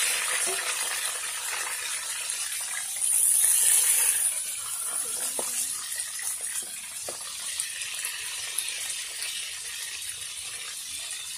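Whole fish sizzling in hot oil in a wok: a steady hiss that swells louder about three seconds in, with a few small pops.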